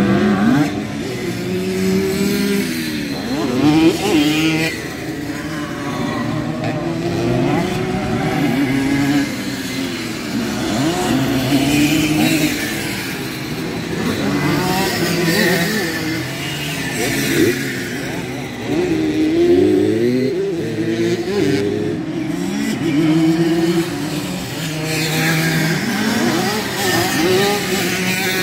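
Several two-stroke Simson moped engines on race motocross bikes revving hard and overlapping, their pitches rising and falling continually as the riders accelerate over the jumps and back off.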